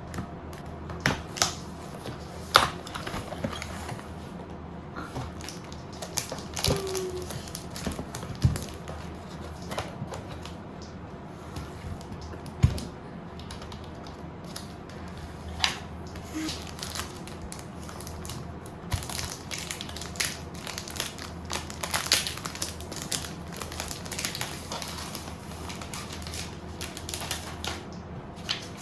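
Irregular sharp clicks and taps with some crinkling as a keyboard and its packaging are handled during unboxing, the clicks coming thicker and faster in the second half.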